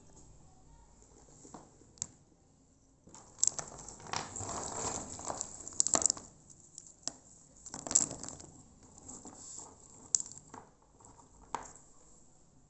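Dried areca nuts being handled: dry rustling and crunching as they shift against each other, with scattered sharp clicks of nut striking nut.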